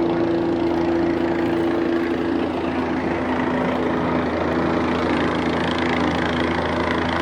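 Helicopter flying overhead, its rotor and engine making a steady, loud, fast-pulsing noise; its main tone drops in pitch about three seconds in.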